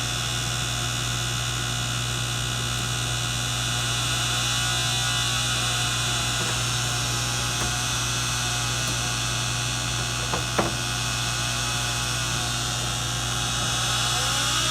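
Steady electrical hum with a thin high whine, and one short click about ten and a half seconds in.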